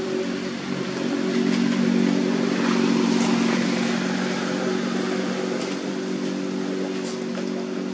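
An engine running steadily, a low even hum that swells slightly and then eases off.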